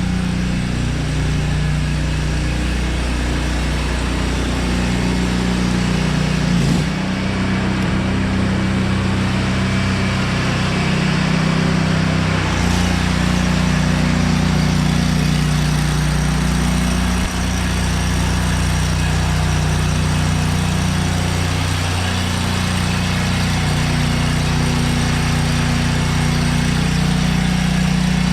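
Gasoline pressure washer engine running steadily under load, with a steady hiss of high-pressure water spray.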